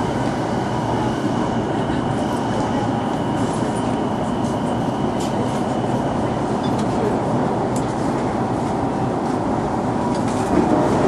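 Inside a Keihin-Tōhoku Line commuter train running past station platforms: a steady rumble of wheels and running gear, with a faint high whine through the first half and a few light clicks.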